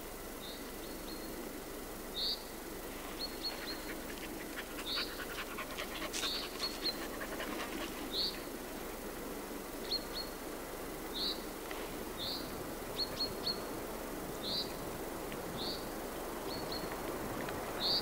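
A bird calling over and over with short, high notes, nearly one a second, alternating two kinds of note, over a steady low rushing noise. A brief crackling rustle comes a few seconds in.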